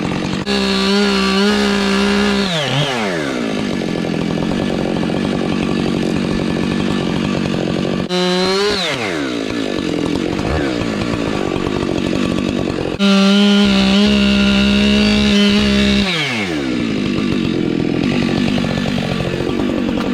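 Husqvarna 592XP, a large two-stroke gas chainsaw, run at full throttle in three bursts, a short one in the middle and longer ones near the start and past the middle. After each burst the revs fall away sharply to a lower, rougher running between them.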